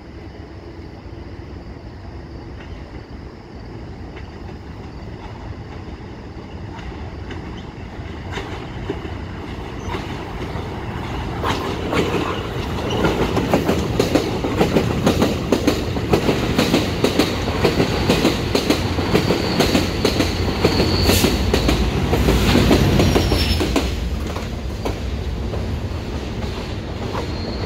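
EXO commuter train of bilevel coaches passing below, its wheels clicking over the rail joints, building up, running loud for about ten seconds, then easing off. A thin, high wheel squeal comes in near the end.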